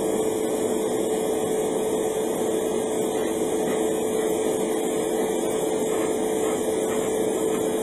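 Small electric motor of a hobby airbrush spray setup running steadily: a constant hum with rushing air.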